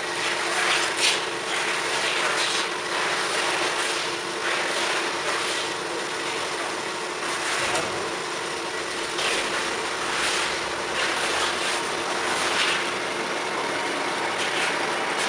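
CORMAK S-280R semi-automatic metal-cutting band saw running: a steady mechanical hum under an even hiss, with brief louder swells every second or two.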